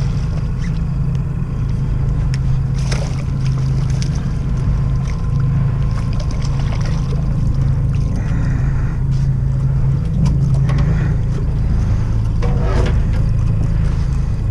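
Boat motor running steadily at low speed, a constant low hum, with a few brief knocks over it.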